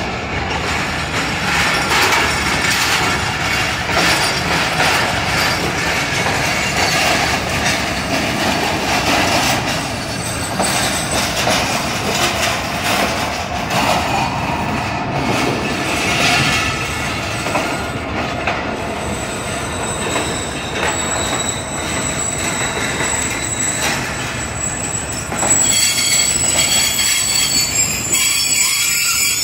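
Pakistan Railways passenger coaches of an arriving express rolling slowly past, wheels clicking over the rail joints. A thin, high squeal comes in over the second half and grows louder in the last few seconds.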